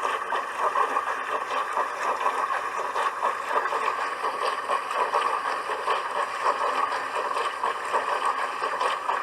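Dishwasher running, with water spraying and splashing inside the tub in a steady rushing noise.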